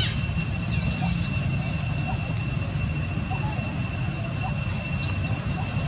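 A baby macaque gives a short high-pitched squeal right at the start, followed by a few faint short calls. A steady low rumble and a constant high whine run underneath.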